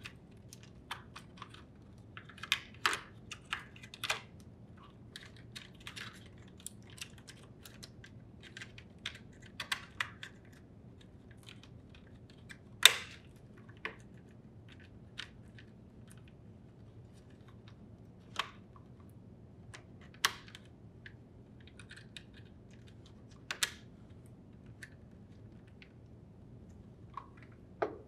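Small plastic clicks and taps, scattered irregularly, as a refrigerator door buzzer board is fitted into its plastic display case and wire harness connectors are pushed onto it. One click about halfway through is clearly louder than the rest.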